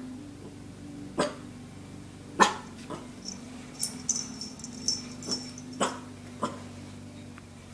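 Dachshund puppy giving short, huffing coughs, its little threatening warning at an intruder: about eight brief huffs at irregular spacing, the loudest about two and a half seconds in.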